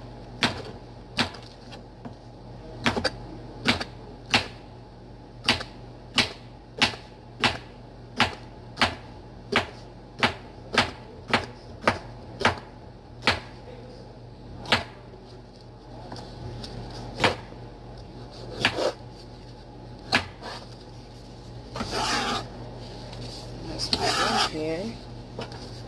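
Chef's knife slicing a cucumber into rounds on a plastic cutting board: a sharp knock each time the blade hits the board, a little over one a second, then slower and more spread out in the second half. Near the end, a burst of rustling and scraping.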